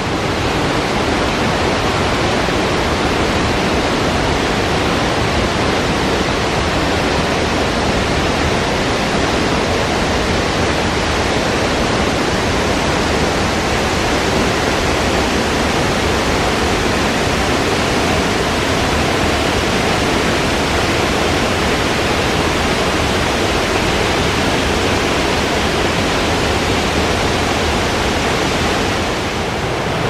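Mountain river water rushing steadily over rocks and falls: one dense, even wash of noise with no pauses.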